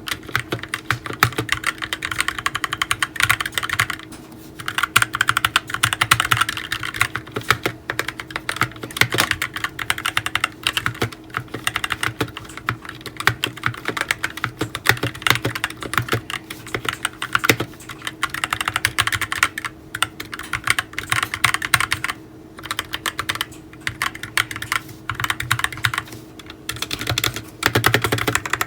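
Typing on a GK61 60% keyboard with optical brown switches: fast, continuous keystroke clacking in bursts, with brief pauses about every few seconds.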